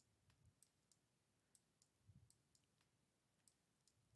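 Faint, irregular clicks from a computer mouse, about a dozen of them, over near silence.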